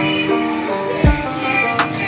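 Music with a steady melody of held notes and a deep drum thump about a second in.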